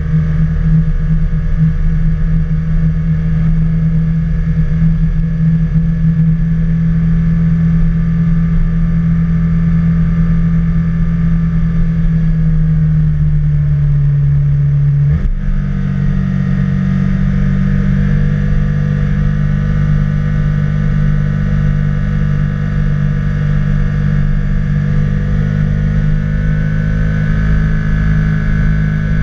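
Can-Am Spyder three-wheeled motorcycle's engine running steadily while cruising down a mountain road. Its note sags a little, then shifts abruptly to a different pitch about halfway through and holds steady again.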